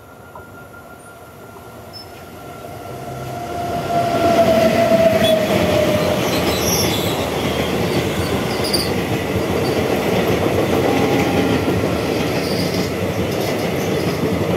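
A passenger train hauled by a WAG-9HC electric locomotive approaches and passes close by. The sound grows sharply about four seconds in, with a short falling whine as the locomotive goes by. After that comes the steady rolling and clatter of the coaches' wheels on the rails.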